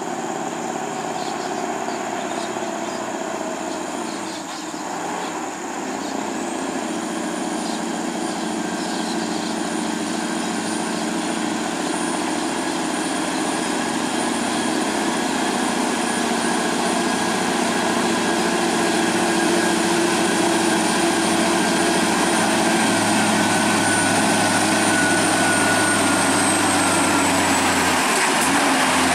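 Scania R580 truck's V8 diesel running steadily as it pulls a lowboy trailer loaded with an excavator, a continuous engine drone that grows gradually louder as the truck draws near.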